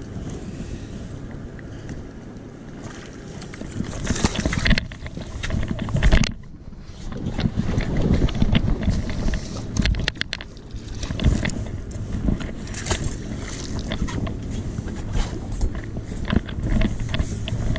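Wind buffeting the microphone in uneven gusts, with a few sharp knocks and bumps around the boat about five and six seconds in and a quick run of clicks about ten seconds in.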